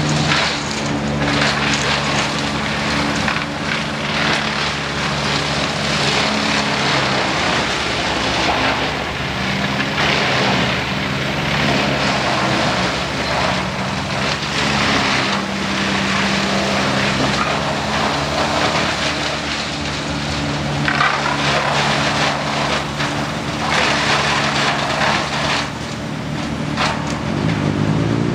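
Wood chipper engine running steadily, with repeated bursts of rough, crunching noise as gum tree branches are fed through and chipped.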